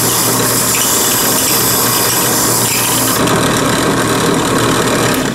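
Bench-motor-driven wire wheel running with a hardened steel knife blade pressed against it, scrubbing off forge scale before tempering. The motor hums steadily under a harsh, squealing scrub, and the highest hiss drops off about three seconds in.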